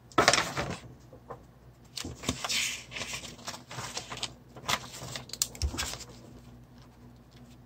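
Sheets of paper rustling and sliding as they are handled and laid flat on a desk, in a string of short bursts, dying away after about six seconds.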